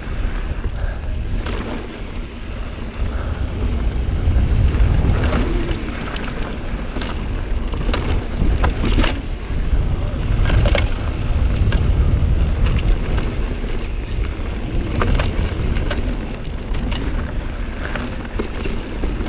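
Mountain bike riding rocky singletrack: wind buffeting the camera microphone and tyres rolling over dirt and rock, with the bike rattling and giving sharp knocks at irregular moments as it hits rocks.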